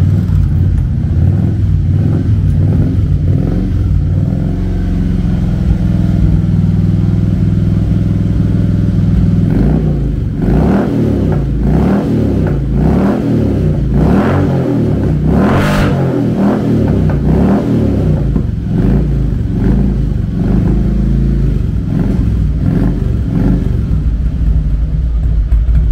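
Harley-Davidson Electra Glide Classic's carburetted V-twin running steadily, then, from about ten seconds in, revved again and again with throttle blips. The freshly reassembled engine is not yet warmed up and its carburettor not yet adjusted.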